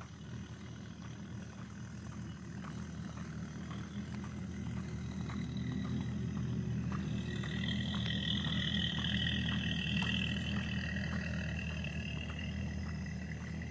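A steady low engine hum that grows louder toward the middle, with footsteps on a concrete walkway about twice a second. A high buzzing tone joins for several seconds in the middle.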